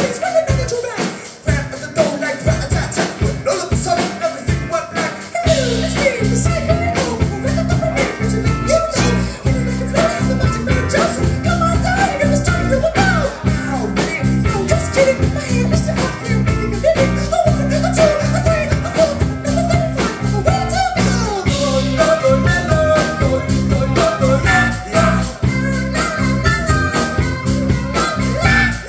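Live band music with a lead singer singing over guitar and a steady drum beat; a heavy bass comes in about five and a half seconds in.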